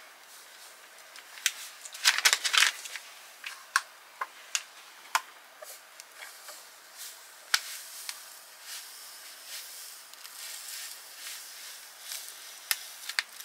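Foil MRE drink-powder pouch crinkling and a plastic water bottle being handled as the powder is tipped into it: scattered crinkles and clicks, a denser flurry about two seconds in, and a soft hiss later on.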